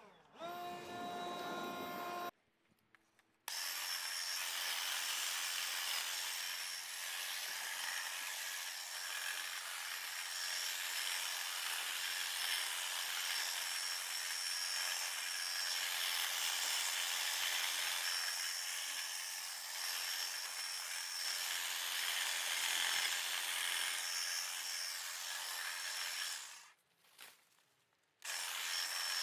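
A cordless Ryobi 40V leaf blower runs with a steady whine for about two seconds. After a short break, a cordless hedge trimmer cuts into a hedge some way off. It is a steady hiss with a thin high whine, and it stops a few seconds before the end.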